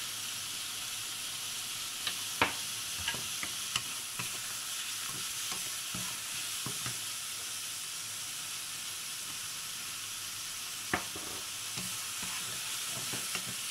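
Chicken pieces frying and sizzling in a wok while a spatula stirs and turns them. There are sharp knocks of the spatula against the pan, a cluster of them a couple of seconds in and a single loud one near the end.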